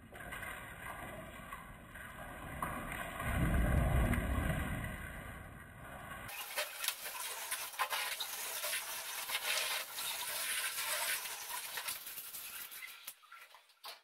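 Scrubbing inside an empty refrigerator: repeated rubbing and scraping strokes of a cloth on the plastic shelves and walls. A low rumble comes first, loudest about four seconds in, and the strokes fade out near the end.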